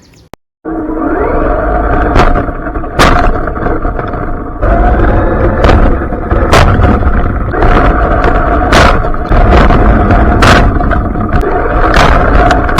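Cheap toy RC car's electric motor running at speed, its tyres and chassis rattling over the ground with scattered knocks and bumps; it starts about half a second in.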